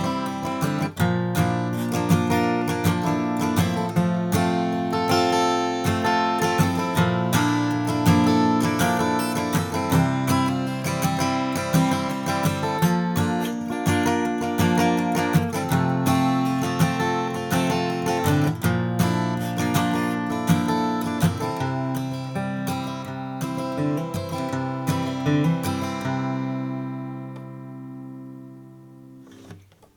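All-mahogany Martin Style 18 acoustic guitar played solo: a steady run of picked notes and chords, ending about 26 seconds in on a chord that rings out and fades before it is stopped just before the end.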